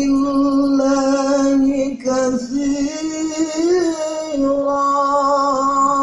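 Music with a singing voice holding long, steady notes, with a short break about two seconds in.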